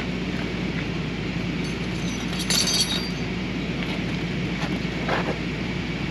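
Rollback tow truck's engine idling steadily. A sharp metallic clink comes about two and a half seconds in, and a smaller knock about five seconds in, as metal wheel-skate hardware is handled under the car's wheel.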